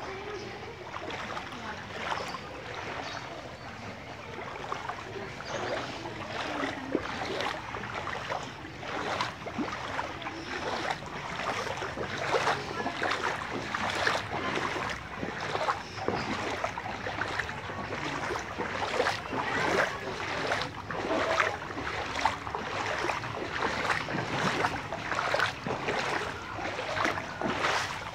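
Footsteps wading through floodwater: repeated sloshing and splashing, about one stroke a second, over a steady wash of water noise.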